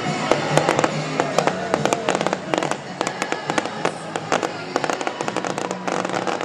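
Aerial fireworks display: shells bursting and crackling in quick succession, several sharp bangs and crackles a second.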